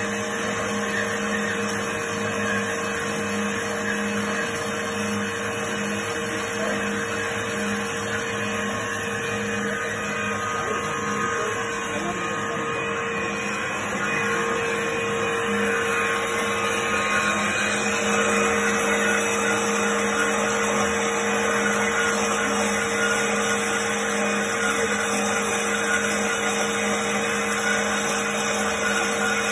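Trennjaeger Teba 310 band saw machine running, a steady motor hum with a low and a higher held tone, slightly louder from about halfway.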